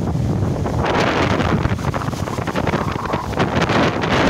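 Strong wind buffeting the microphone with a steady low rumble, over storm surf washing up the sand; the foamy hiss of a wave swells about a second in and runs on until near the end.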